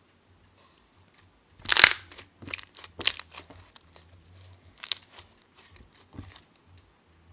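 Irregular crunching and crackling from something being handled at close range, loudest in a burst about two seconds in, then a scatter of smaller crackles.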